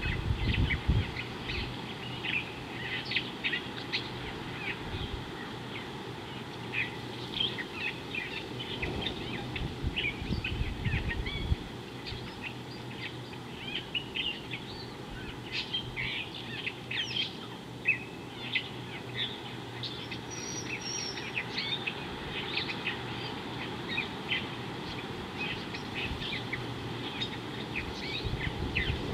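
Many small birds chirping and calling, a dense run of short high calls that overlap and never stop. A low rumble comes in briefly at the start and again about ten seconds in.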